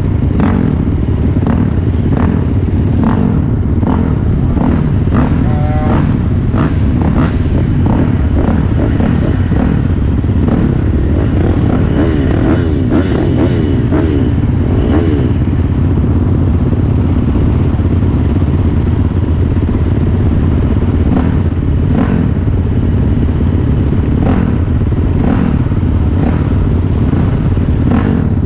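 Several motocross dirt bikes idling at close range, the rider's own bike nearest, a steady low engine drone with some brief revving around the middle.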